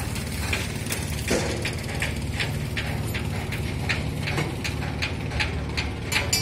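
Steady low machinery drone with irregular sharp metallic clicks and knocks, one or two a second.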